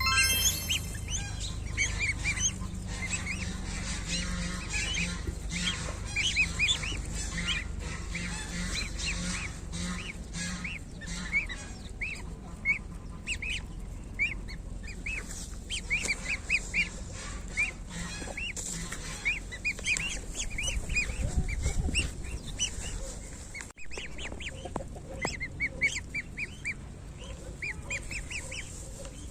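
One-week-old goslings peeping, many short high calls overlapping one after another.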